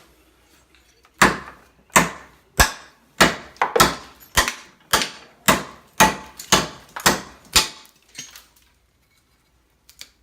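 Lawnmower-blade steel cleaver chopping repeatedly into a block of dense wood: about a dozen sharp chops, roughly two a second, that stop a little before the end.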